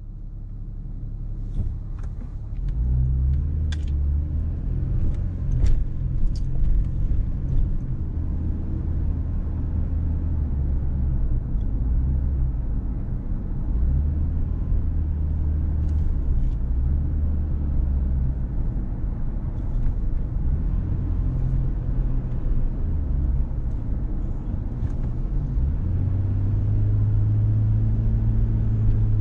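A car driving, with a steady low rumble of engine and road noise that swells and eases, and a few faint clicks and knocks.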